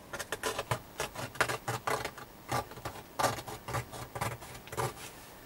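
Gloved hands cutting into and working at a fabric bag of a WW1 mine charge to reach the primer set inside: an irregular run of crisp clicks, snips and crackles that stops about five seconds in.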